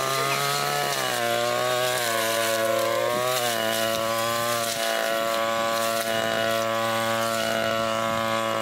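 Brush cutter engine running steadily at high speed as its spinning head cuts grass, the pitch sagging briefly a couple of times under the load.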